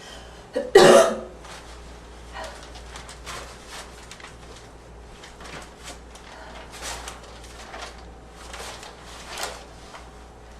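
A person gives one barking cough, a short catch and then a harsh burst, about a second in. A few faint short sounds follow over the next seconds.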